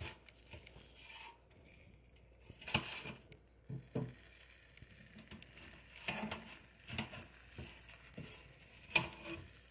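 Silicone-tipped tongs turning breaded chicken breasts over in an air fryer basket: a scatter of faint scrapes and soft taps, the clearest about three seconds in and again near the end.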